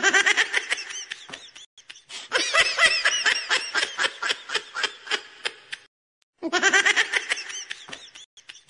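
High-pitched laughter in three bursts, each a rapid run of giggling pulses, with short silent gaps between them.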